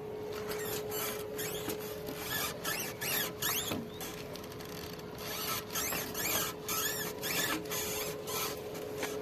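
Royal Enfield 350 BS6 front end making its 'chu chuu' noise: repeated short squeaks and rubbing clicks over a steady hum. The showroom traced the noise to wiring rubbing at the front handle.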